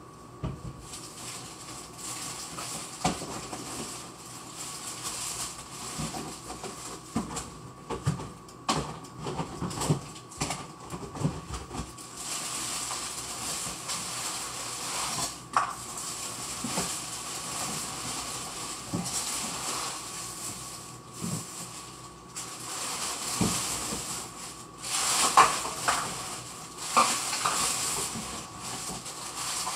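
Kitchenware clattering and knocking now and then, with a busier, louder run of clatter near the end, over the steady sizzle of a skillet of turkey and eggs cooking on the stove.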